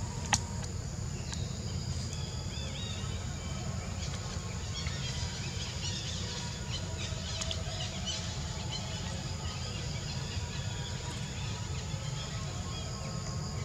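Outdoor ambience: a steady high insect drone with scattered short bird chirps over a low rumble. A single sharp click comes just after the start.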